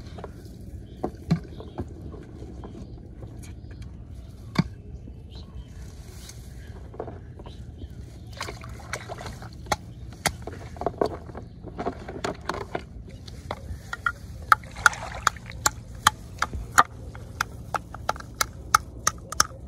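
Hands sloshing and splashing in shallow paddy water, then a quick series of sharp knocks, about two a second, as a stone strikes a snail shell against a brick.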